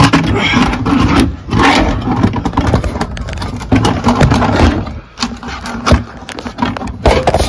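Close, irregular scraping and rustling, with a few sharp knocks, as the phone is handled and moved about under the truck.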